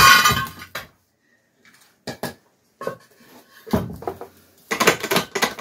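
Metal clanking and knocking from the gearbox being handled: a loud clatter right at the start, a short pause, then a run of sharp knocks and clicks.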